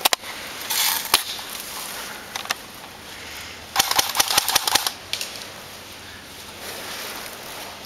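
Airsoft gun fire: two bursts of rapid sharp clicks, a short one about a second in and a longer one of about a second near the middle, with a few single shots between.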